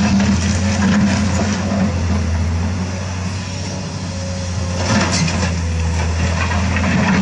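Remote-control toy excavator running with a steady low electric-motor hum as its arm and bucket work, with a brief clatter of dirt dropping into a toy dump truck's bed about five seconds in.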